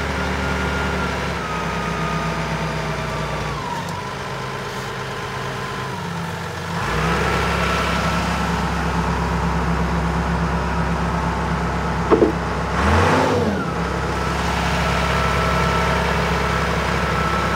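Kalmar DC 7.5-600 diesel forklift engine running, its speed rising about halfway through and revving briefly near the end, with a thin high whine over it.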